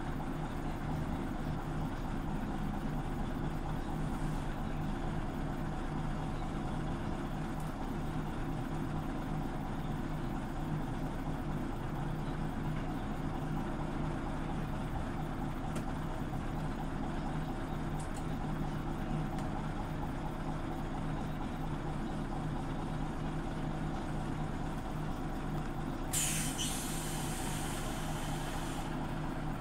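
Scania OmniLink CL94UB city bus running steadily with a low engine drone. About 26 seconds in comes a burst of compressed-air hiss lasting about three seconds.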